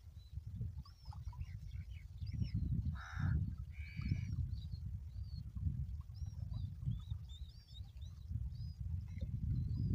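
Small birds chirping over and over, with two louder calls about three and four seconds in, over a low rumble of wind on the microphone.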